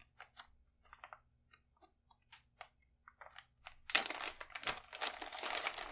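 A resealable zip-lock plastic bag being pulled open by hand, its seal coming apart in a string of small ticks; about four seconds in, loud crinkling of the plastic as the bag is opened wide and handled.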